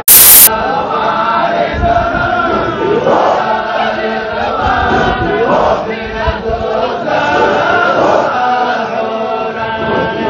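Sufi Qadiriya dhikr: a group of men and women chanting together in unison, many voices at once. Right at the start, a loud burst of harsh, static-like noise lasts about half a second.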